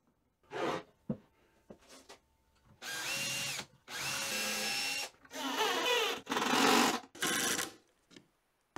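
Makita cordless drill-driver and impact driver driving wood screws up into plywood from beneath, in five short runs of under a second each, the motor's whine rising in pitch in places. A few faint clicks come before the first run.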